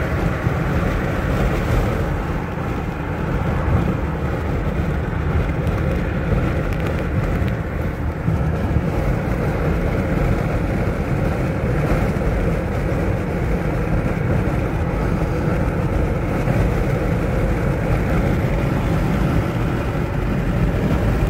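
Steady road and engine noise heard inside a car's cabin at highway speed.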